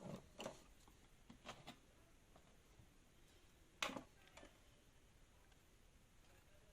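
Quiet room tone with a few faint clicks and light knocks of handling: several in the first two seconds and one sharper click just under four seconds in.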